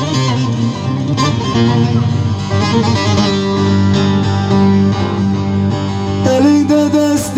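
Live Turkish folk music: an amplified bağlama (saz) playing a plucked instrumental passage of a bozlak over steady held keyboard tones.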